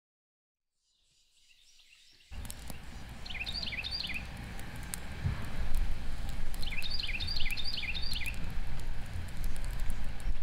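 Wood campfire burning in a steel fire ring, crackling with many small sharp pops over a steady low rumble, fading in after about two seconds of silence. A small bird calls twice in quick runs of chirps, the second run longer.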